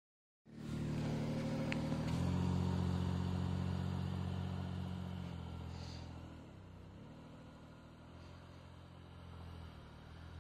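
Isuzu VehiCROSS V6 engine held at high, steady revs as the SUV slides sideways through snow, easing off about five and a half seconds in and running on lower. The exhaust sounds odd because the front exhaust Y-pipe has cracked.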